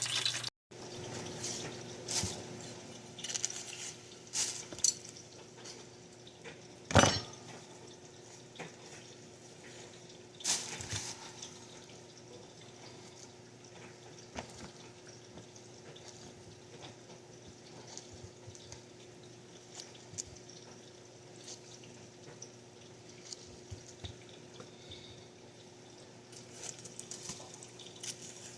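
A pot of beans simmering on the stove, with scattered small pops and clinks over a steady low hum, and one louder knock about seven seconds in.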